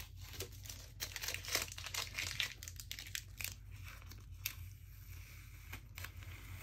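Masking tape being peeled off the edge of watercolor paper: irregular ripping and crackling, densest in the first few seconds, with a couple of sharp single clicks later.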